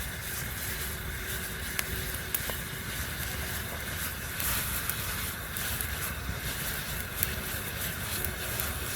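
Campfire burning, with a few sharp pops and crackles over a steady low rumble.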